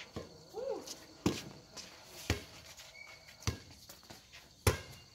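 An air volleyball being struck by hand four times in a rally, sharp smacks about a second apart, with a short shout near the start.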